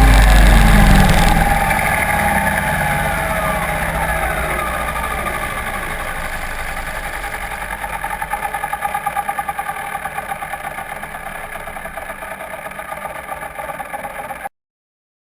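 Onboard sound of an FPV model aircraft: the motor's whine drops in pitch over the first few seconds as it throttles down, under heavy wind rumble on the microphone. A softer, steady hum follows, pulsing in level for a while, then cuts off suddenly near the end.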